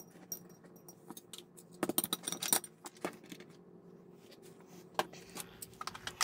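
Small hobby tools and plastic kit parts clicking and clattering as they are handled and set down on a cutting mat, with a quick cluster of clicks about two seconds in and single clicks near three and five seconds.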